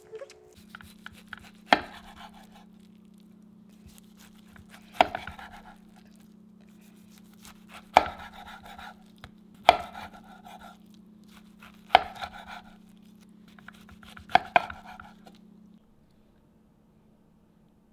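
Chef's knife slicing through a seaweed-wrapped gimbap roll on a wooden cutting board: six cuts a few seconds apart, each a sharp knock on the board with a short crackle after it.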